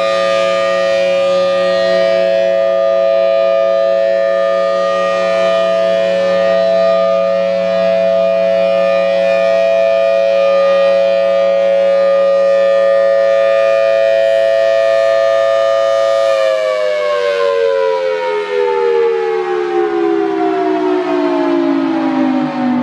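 Federal Signal Thunderbolt 1003 supercharged outdoor warning siren sounding its steady two-tone full-alert chord as the horn rotates. About two-thirds of the way through, the pitch starts falling steadily as the siren winds down at the end of the alert.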